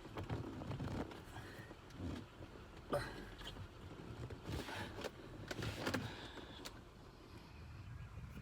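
Scattered plastic clicks, knocks and scrapes from a BMW E90 blower motor being forced to twist in its plastic housing, which is held by a locking clip and is very hard to turn.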